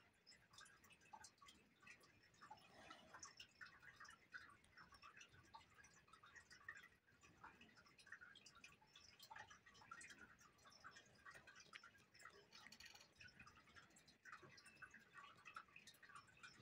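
Faint, irregular soft scratching and tapping of a wet paintbrush worked over paper, at near-silent level.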